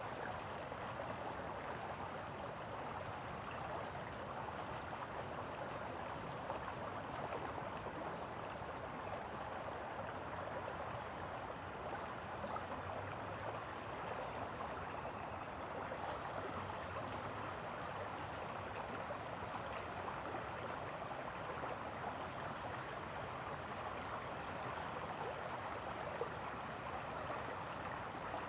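Steady rush of a flowing stream, even and unbroken.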